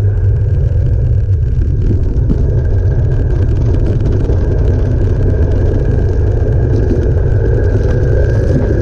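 Ural sidecar motorcycle's air-cooled flat-twin engine running steadily as the rig rides through snow, a deep, even drone with no change in revs.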